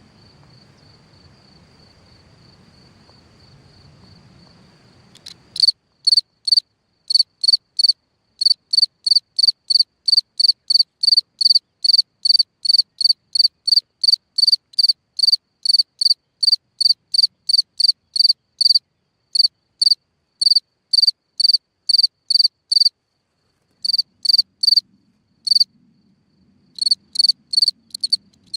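A ground-dwelling cricket singing: a faint, steady high trill for the first few seconds, then loud, short, high chirps in an even series of about two to three a second, breaking off briefly twice near the end.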